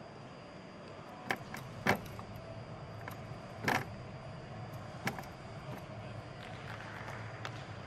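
A gymnast's feet landing and stepping on a balance beam: four sharp thuds over the first five seconds, the loudest about two seconds in and near four seconds, with a few lighter taps, over a steady background hum.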